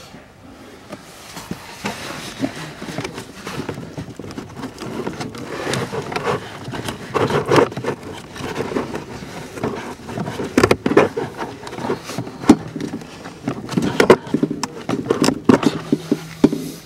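Old cabin air filter being worked out of its plastic housing by hand: the frame and pleated media scrape and rustle against the housing, with irregular sharp clicks and knocks that grow busier and louder in the second half.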